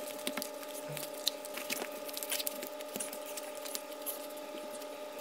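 Rustling and light clicking of adidas X 16.3 indoor football shoes and their laces being handled, pulled and tied, many small irregular ticks over a faint steady hum.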